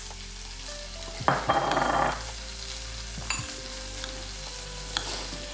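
Salt going into a bowl of chopped salsa and a spoon stirring it: a short grainy scrape about a second in, then a few light clicks of the utensil against the bowl.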